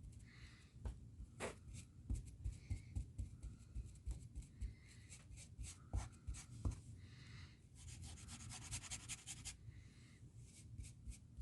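Small paintbrush stroking and dabbing paint onto a model railroad crossing gate: soft scratchy brush strokes with light taps, and a quicker run of strokes about eight seconds in.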